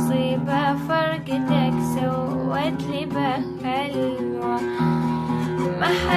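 An Iraqi song sung by a girl with vibrato over oud accompaniment, the plucked strings holding low notes under the wavering melody.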